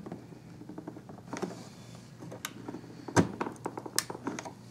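Scattered small clicks and taps of computer parts being handled and pressed into place on a motherboard, with a few sharper clicks, the loudest about three seconds in.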